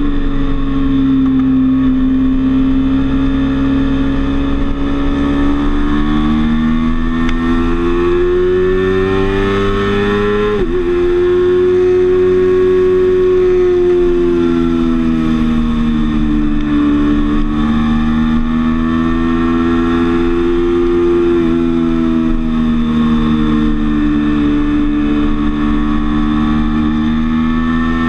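Sport bike engine heard on board at track speed, its note rising and falling slowly over several seconds as the rider works the throttle through the corners, with a brief break in the note about ten and a half seconds in. Wind rush runs under it.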